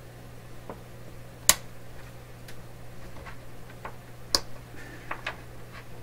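Small sharp clicks and snaps from the parts of a partly disassembled toggle switch being handled and worked. Two louder snaps come about a second and a half in and a little past four seconds, with softer ticks scattered between, over a low steady hum.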